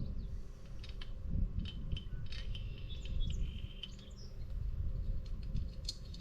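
Scattered light metallic clicks and taps from hand tools working on the engine's cylinder bolts, with a few short high chirps in the middle, over a steady low rumble.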